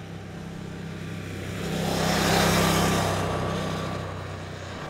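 Motorcycle riding past on a road: a steady engine note that swells to its loudest about halfway through as the bike passes, then fades as it rides away.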